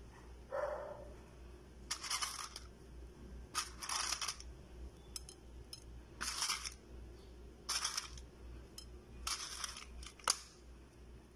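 About six short rustling bursts a second or two apart, with one sharp click near the end: ingredients and their packaging being handled while a marinade is seasoned.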